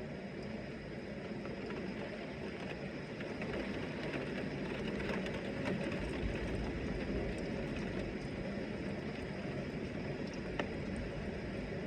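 Heavy rain falling steadily, with scattered drop ticks. It swells a few seconds in with a low rumble underneath, and there is one sharp tick near the end.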